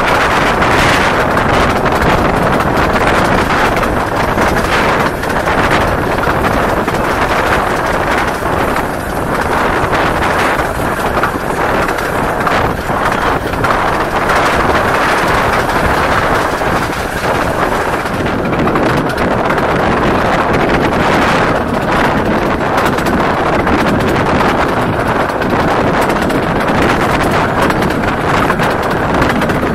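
Wind rushing over the microphone from the window of a moving 15-inch gauge miniature railway train, over the train's steady running noise. It is loud and continuous, with many small brief crackles.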